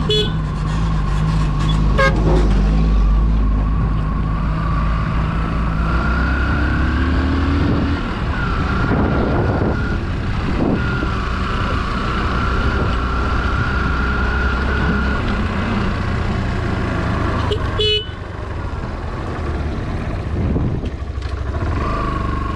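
Road vehicle's engine and tyre noise while driving, with a few short horn toots, one near the end.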